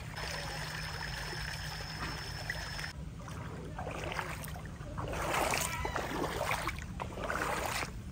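Shallow stream water splashing and sloshing as it is stirred by hand, in several bursts over the last five seconds, over a steady low rumble. A thin steady high tone sounds for the first three seconds, then stops.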